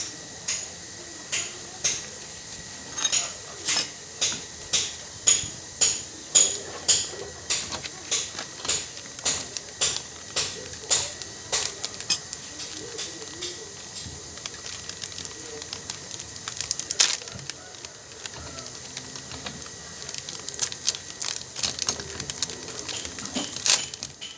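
Sharp metal-on-metal taps, about two a second, getting louder and then fading over the first half, followed by scattered, irregular clinks and clicks.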